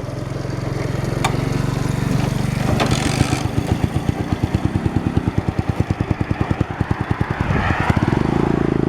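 Motorcycle engine running as the bike moves along the road, with an even pulsing beat. Near the end the sound changes to a smoother, steadier note.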